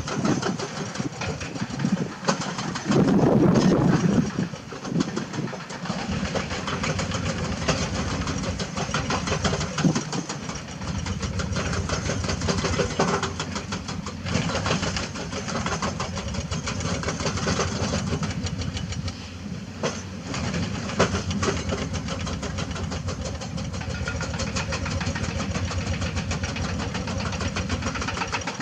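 Diesel engine of a Hyundai 220 hydraulic excavator running as it digs and loads dirt into a dump truck, with a louder burst about three seconds in and scattered clanks and knocks.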